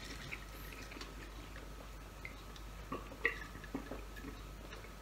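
Mostly quiet room tone, then a few soft clicks and gulps of cola being drunk from a large glass mug, starting about three seconds in.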